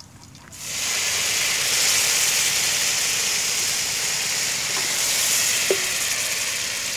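Liquid poured into hot frying oil in an aluminium pot starts hissing and sizzling loudly about half a second in, a steady hiss of steam that slowly eases off. A light metal knock, the ladle against the pot, comes near the end.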